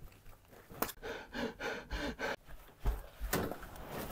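A woman panting in quick, short breaths, about three a second, starting about a second in. There are two low thumps about three seconds in.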